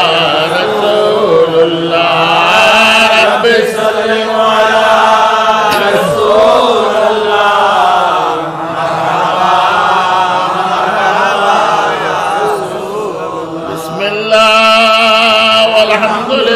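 Men chanting the Arabic salawat of a milad in long, melodic held lines. The chant softens for a moment near the end, then comes back louder.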